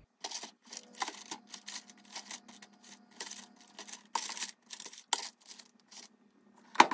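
A quick, irregular series of sharp clicks and taps over a faint steady low hum, with one louder tap near the end.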